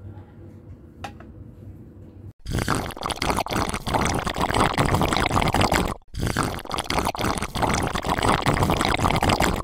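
Loud, dense splashing noise like liquid pouring, in two stretches of about three and a half seconds with a brief break between them, after a quiet start with a single click.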